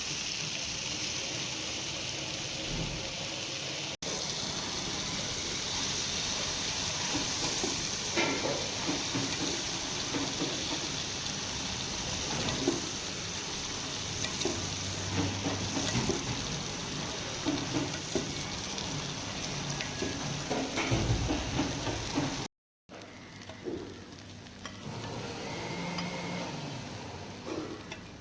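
Red snapper frying in oil on a tawa, with a steady sizzle and scattered light knocks and scrapes of a utensil against the pan. The sizzle cuts off abruptly near the end, then goes on more quietly.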